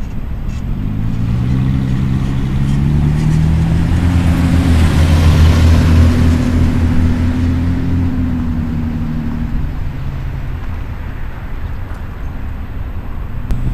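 A car driving past on the street: its engine hum and tyre noise grow louder, peak about halfway through, then fade away.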